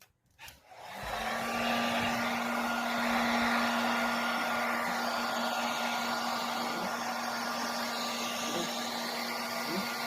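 Handheld hair dryer switching on about a second in and then blowing steadily: a rushing air noise with a constant hum and a faint higher whine.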